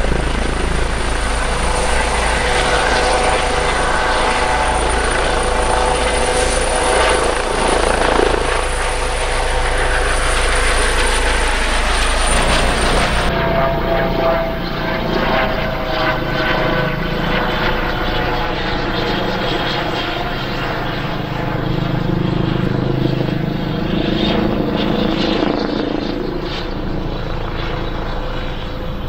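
Eurocopter EC135 T3 (Airbus H135) helicopter lifting off at high power: twin turboshaft turbines with a steady high whine over the main rotor and Fenestron tail-rotor noise. About halfway through, the high whine drops away and the helicopter is heard in flight farther off, as steady rotor noise with a lower throb.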